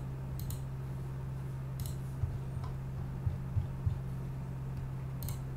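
A few sharp computer-mouse clicks over a steady low hum: two clicks close together about half a second in, another near two seconds, and one more near the end, with a few soft low bumps in between.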